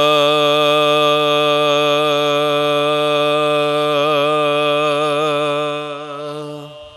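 Soz khwani, a Shia mourning chant: a man's long held sung note, joined by other men's voices, that wavers in an ornamented trill about four seconds in and fades away near the end.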